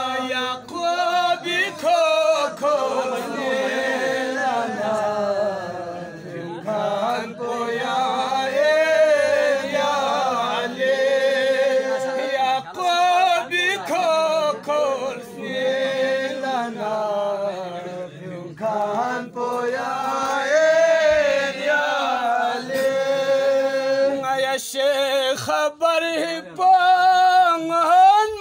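A man singing a manqabat, a devotional praise song, unaccompanied. He holds long, wavering notes, with short breaks between lines.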